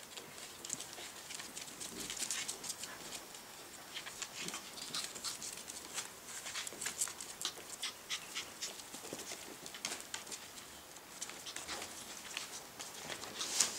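Norwich terrier puppies playing together: scuffling, with many quick light clicks and scratches scattered all through.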